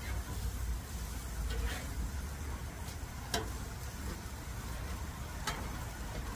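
Crab cakes sizzling on a flat-top griddle while a metal spatula scrapes and taps the steel a few times as it slides under them, over a steady low rumble.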